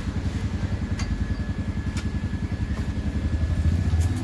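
Motorcycle engine idling with an even, fast pulse, with two light clicks about one and two seconds in.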